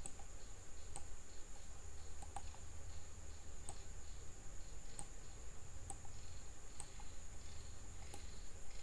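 Computer mouse clicking: single sharp clicks about once a second or so, over a faint steady high-pitched whine and a low hum.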